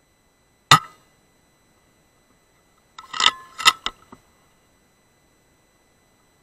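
A single sharp shot from a Weihrauch HW100 .177 side-lever PCP air rifle, then about two seconds later a quick run of quieter metallic clicks as the side lever is worked to load the next pellet. A faint steady high whine sits underneath.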